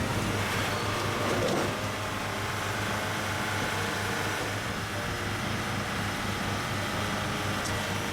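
A heavy machine's engine running steadily, with a constant low hum under broad mechanical noise.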